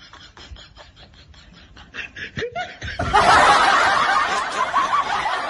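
Faint clicks and rustling, then about halfway through a loud burst of laughter, an added laugh sound effect, that keeps going.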